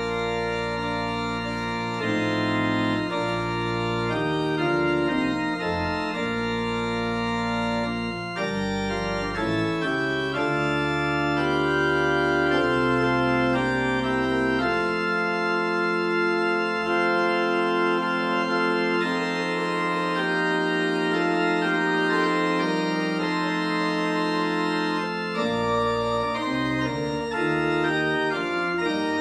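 Church organ playing held chords with the notes changing, deep pedal notes in the bass for the first half, dropping out about halfway through and returning briefly near the end.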